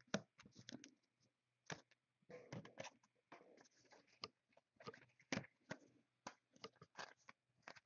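Faint handling of football trading cards: irregular soft clicks, slides and rustles as cards are shuffled and flipped through by hand.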